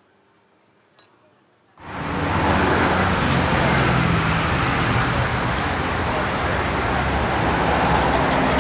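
Street traffic noise that starts suddenly about two seconds in and then runs loud and steady, after a near-quiet start with a single small click.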